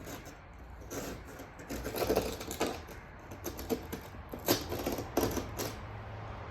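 Irregular clicks, taps and light scraping of hand work on an old wooden window sash and its glass pane, at uneven spacing, with the sharpest taps about two seconds in and again past the middle.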